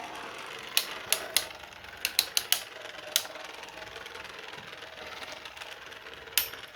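3D-printed Beyblade tops spinning in a stadium with a steady whir, clashing with a series of sharp clacks in the first few seconds and one more near the end.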